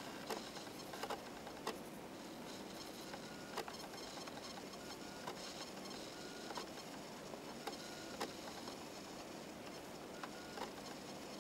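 Faint, scattered clicks and light crackles of a plastic blister package being handled and turned over, over a steady background hiss.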